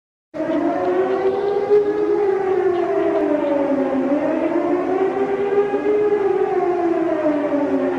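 Emergency alert siren wailing: a low and a higher tone slowly rise and fall together. It starts abruptly about a third of a second in.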